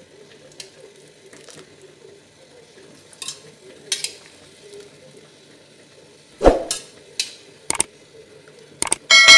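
Metal tongs clicking and knocking against an aluminium wok while boiled bamboo shoots are lifted out. There are scattered light clacks, a louder knock about six and a half seconds in, and a ringing metal clang right at the end.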